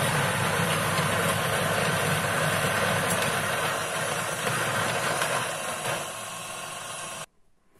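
Niche Zero conical burr coffee grinder grinding a dose of espresso beans, a loud steady grinding whir that turns lighter about six seconds in and then stops abruptly.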